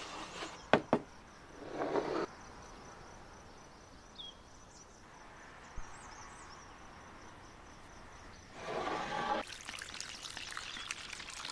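Water poured into a well of flour, splashing and trickling from about eight and a half seconds in. Earlier come two sharp wooden knocks about a second in and a short scraping rustle, as a small wooden bowl is worked over the flour in a larger wooden bowl.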